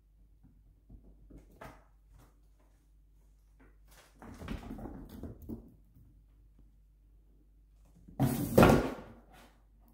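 Two stretches of knocking and rustling on a quiet floor, the louder a heavy thunk about eight seconds in.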